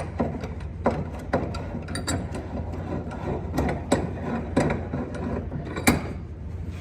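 A cast-iron woodworking vise's movable jaw is being run back in on its screw and guide bars. It gives irregular metallic clicks and clunks, about one or two a second, with the loudest clunk near the end, over a steady low hum.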